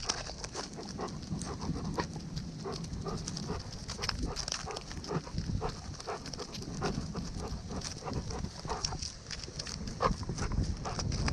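A dog moving along the forest floor, heard up close from the dog's own body: many quick, irregular footfalls and crunches with small clicks.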